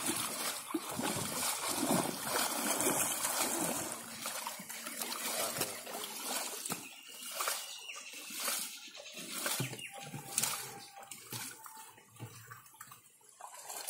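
Pond water splashing and sloshing irregularly as people wade through it dragging a fishing net, busiest in the first few seconds and quieter after.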